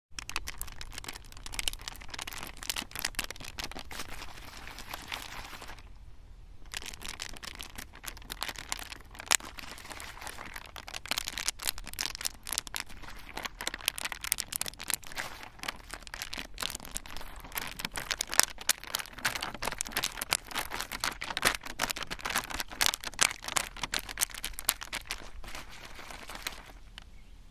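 Brush and palette work on paper sped up in a time lapse: a dense run of scratchy clicks and crackles, with a short break about six seconds in.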